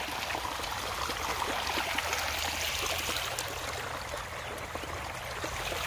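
Shallow stream running and trickling over stones, a steady rush of water.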